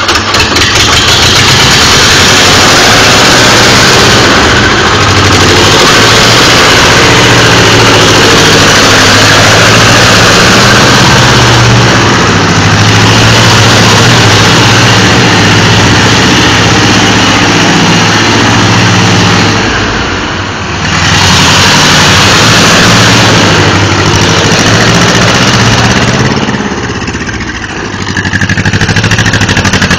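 Fiat 211R 'La Piccola' tractor engine running steadily as the tractor is driven about. The level dips briefly twice, about two-thirds of the way through and near the end.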